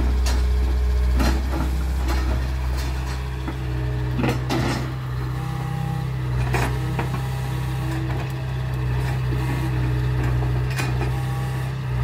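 Cat 307 excavator's diesel engine running steadily under working load. Over it come intermittent sharp cracks and knocks as the bucket and mechanical thumb grab and shove a pile of brush and branches, with a cluster of them about four seconds in.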